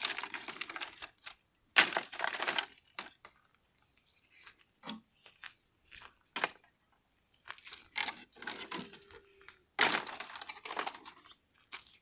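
Dry pereira wood being handled and stacked into a bonfire: bursts of crunching and cracking of dry bark and branches, with scattered single knocks between them.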